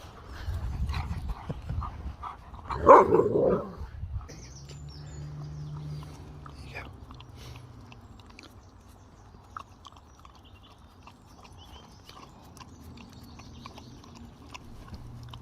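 Malamute vocalising in short barks and woos, with a loud pitched burst about three seconds in. It then goes quiet, leaving a low steady hum with a few faint clicks.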